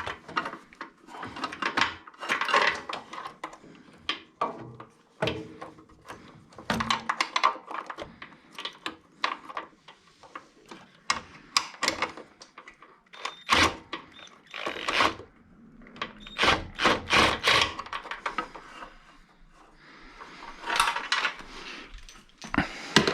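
Socket wrench on a long stack of extensions undoing small 10 mm bolts: irregular metallic clicks, clinks and knocks, with a few quick runs of ticking.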